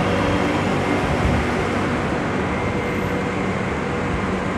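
Madrid Metro train running slowly alongside the platform: a steady rumble with a faint motor whine that dies away about a second and a half in.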